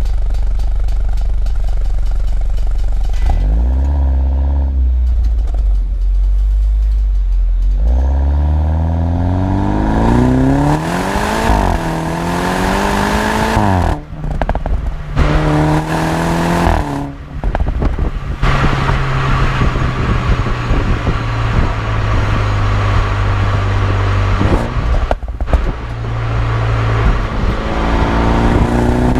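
BMW 125i's B48 2.0-litre turbocharged four-cylinder running through a stock M140i cat-back exhaust. It gives a short rev about four seconds in, then pulls hard from about eight seconds, revs climbing with breaks at upshifts. On lift-off it crackles and pops, then settles to a steady cruise, with another crackle near the end and revs rising again.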